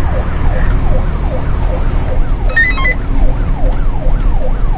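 Fire engine's siren in a fast yelp, its pitch rising and falling two to three times a second, heard from inside the cab over the steady low rumble of the truck's engine and road noise.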